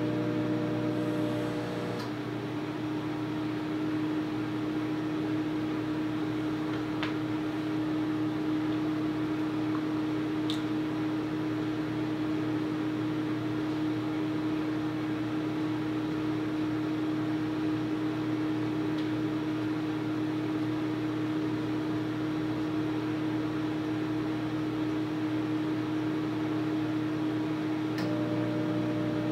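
Microwave oven running while it heats a bowl of oatmeal: a steady hum with fan noise. A second layer of hum drops away about two seconds in and comes back near the end, with a couple of faint ticks in between.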